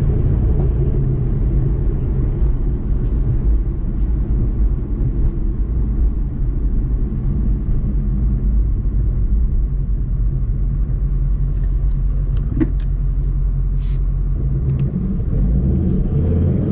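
In-cabin drone of a Ford Mustang cruising at steady revs: the engine, exhaust and Calimer Stage 3 MT82 six-speed gearbox make a steady low rumble. This is the rev range where the owner says a seat vibration used to come through, now much reduced but still there.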